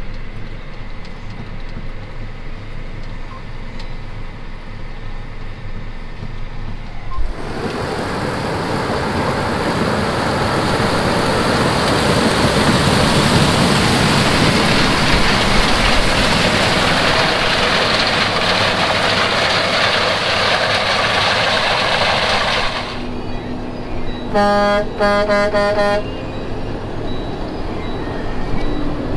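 Farm machinery running: first a tractor engine humming steadily, heard from inside the cab. About seven seconds in, a loud even rush of noise from a John Deere combine harvesting corn up close takes over. It ends abruptly, and a horn then sounds several short toots in quick succession.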